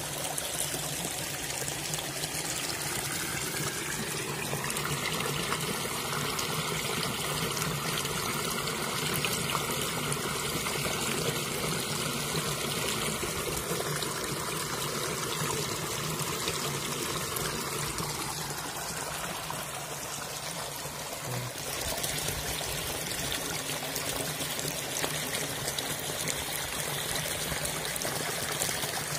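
Stream water running and splashing steadily over rocks and a bamboo-slat panai pari fish trap set in the flow.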